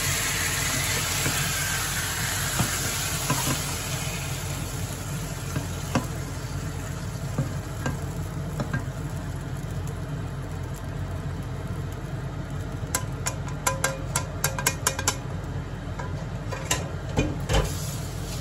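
Hamburger steaks frying in sauce in a nonstick frying pan, sizzling loudly at first, with the sizzle fading over the first few seconds. Later come a quick run of clicks and taps and then a few knocks as the spatula works the patties out of the pan onto a plate.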